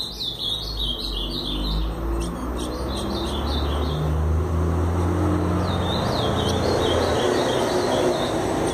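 Caged ultramarine grosbeaks (azulão) giving runs of short, high chirps, each falling in pitch, several a second: a run at the start, another about three seconds in, and a third around six seconds, over a steady low rumble.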